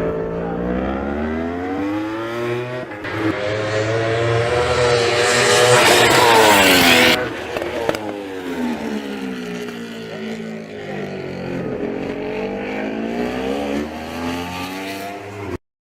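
World Superbike racing motorcycles going through a corner one after another, their engine pitch falling and rising as they brake, shift and accelerate. The loudest pass comes about halfway through and drops off sharply. The sound cuts off abruptly near the end.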